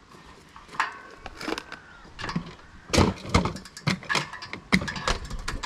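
Irregular knocks and clanks, unevenly spaced and loudest in the second half, as of tools or equipment being handled; not a running jackhammer.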